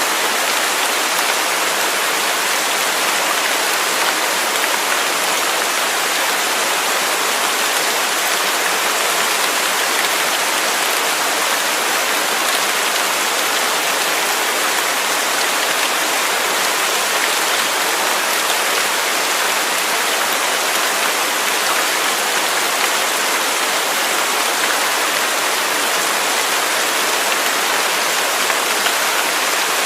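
Waterfall: water falling and rushing in a steady, unbroken roar of white-noise-like splashing.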